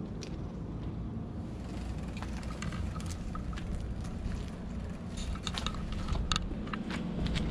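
Low wind rumble on the camera microphone, with scattered small clicks and rustles of the camera being handled, mostly between about two and seven seconds in.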